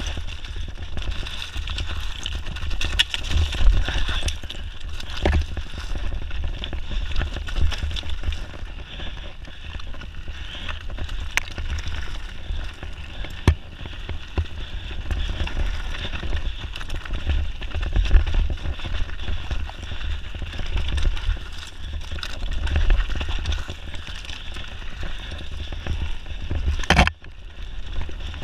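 Mountain bike descending a dry, rocky trail: the tyres crunch and rumble over loose stones and the bike rattles with frequent small knocks. A constant deep rumble of wind runs on the camera's microphone.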